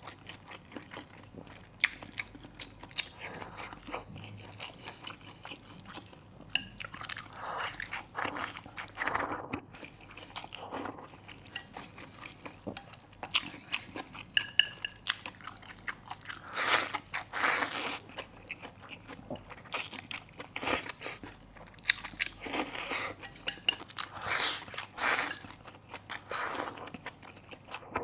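Close-miked eating: a person chewing and biting into stir-fried wild chicken mushrooms and pork with rice, in irregular crunchy, wet bursts with sharp clicks now and then.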